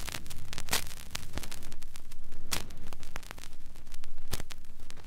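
Vinyl LP surface noise in the lead-in groove before the music: a steady crackly hiss and low rumble with scattered clicks and pops.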